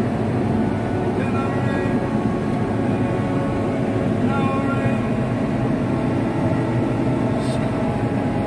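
Tractor engine running steadily while the tractor drives along crop rows pulling a row-crop hoe, heard from inside the cab. A higher whine comes and goes over the engine hum.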